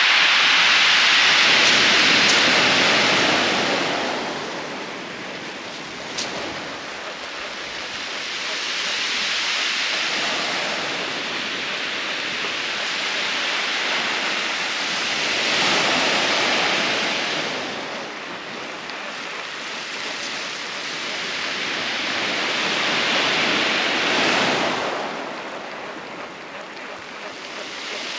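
Waves breaking and washing over a shingle beach: four slow surges of hiss, each swelling and fading about every seven seconds. A single sharp click comes about six seconds in.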